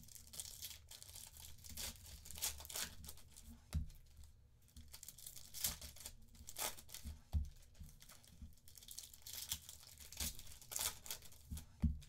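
Foil trading-card packs being torn open and crinkled by hand, in repeated rustling bursts, with a few soft thumps on the table between them.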